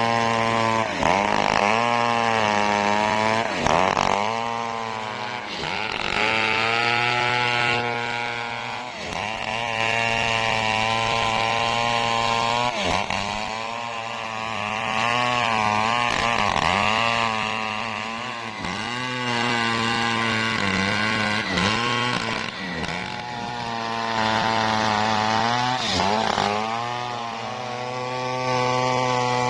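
Stihl 070 two-stroke chainsaw cutting lengthwise through a teak log at high revs. Its engine pitch sags and recovers again and again as the chain bites into the wood.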